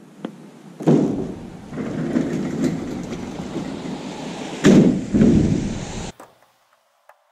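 Metal ramp door of an enclosed cargo trailer being heaved up and shut: a rough rattling and rumbling, with a loud bang about a second in and another heavy bang near five seconds, then it stops suddenly.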